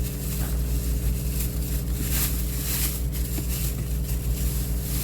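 A steady low mechanical hum, with short rustling noises about two to three seconds in.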